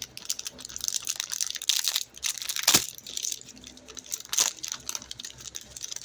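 Plastic wrapper of a trading-card pack being crinkled and torn open by hand: a run of close crackling, with a couple of louder rips partway through.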